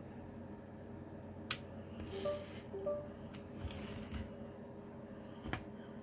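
A magnetic USB cable plug snapping onto its tip in the Icom IC-705's USB port: one sharp click about a second and a half in, followed by lighter handling clicks and rustling.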